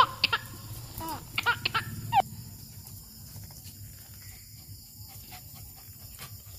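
Dogs play-fighting: several short, high yelps and whines in the first two seconds over a low growl. After that only faint clicks.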